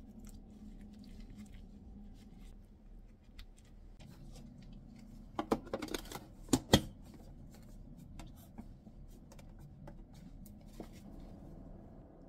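Faint rustling and squishing of gloved hands packing stuffed cucumber kimchi into a plastic food container. Then its plastic lid is pressed on and snaps shut with a quick run of sharp clicks about five to seven seconds in.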